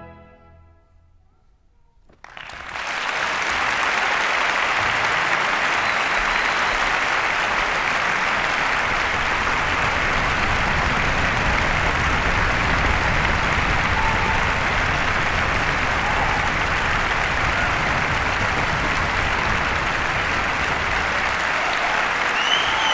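The orchestra's final chord dies away in the hall's reverberation, and after a hush of about two seconds the audience breaks into steady applause.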